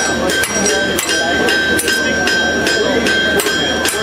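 Blacksmith's hammer striking a hot railroad spike on an anvil at about three to four blows a second, each blow followed by the anvil's bell-like ring.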